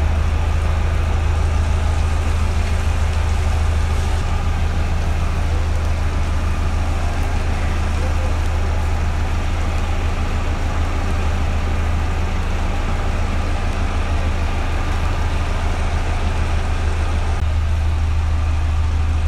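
Houseboat engine running with a steady low drone and an even hiss over it.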